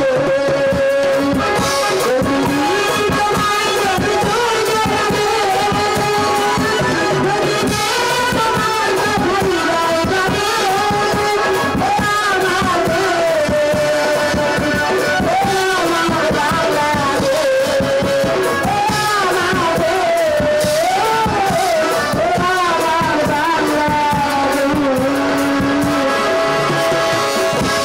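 Live jatra music for a bandana (invocation) song: women singing a melody over a steady drum rhythm and accompanying instruments, without a break.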